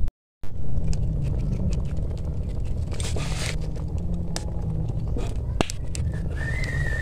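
Metal spoon stirring in a wok of coconut-milk stew over a wood fire, with scattered clicks and a short scrape about three seconds in, over a steady low rumble. A thin, wavering high tone comes in about a second before the end.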